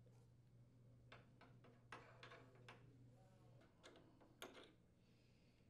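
Faint, irregular metallic clicks and ticks of a small wrench working the threaded leveling foot at the base of a refrigerator, turning it to raise the foot.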